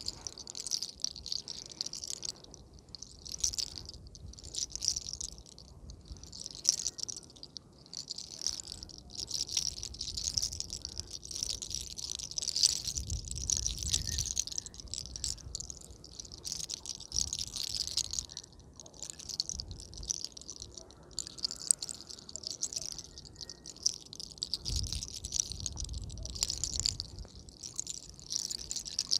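Hands rubbing through hair and over the scalp in a head massage: repeated rustling strokes, with a couple of low thumps, one about halfway and one near the end.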